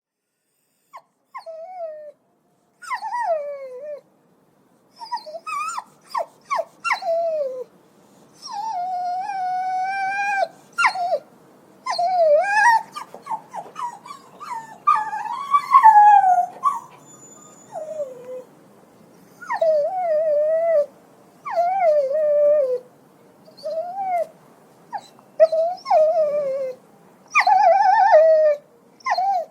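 Puppy yelping: repeated high cries, most dropping in pitch, coming in irregular runs with short gaps, and one longer, steadier cry about nine seconds in.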